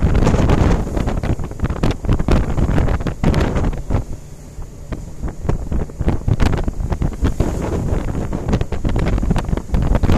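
Strong wind buffeting the microphone over the rush of sea breaking along a cargo ship's hull in rough water, easing briefly about four seconds in.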